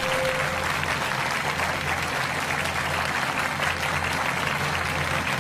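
Television studio audience applauding steadily, with a low steady hum underneath.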